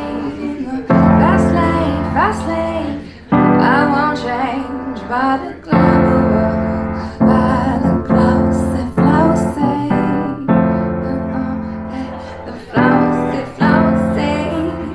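Upright piano playing slow chords, each struck and left to fade, while a woman sings sliding, ornamented vocal runs over them.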